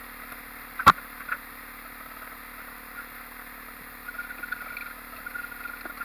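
A single sharp metal knock about a second in, with a smaller one just after, as a steel axle shaft and bearing are handled on a workbench, over a low steady hum. Faint poultry calls in the background near the end.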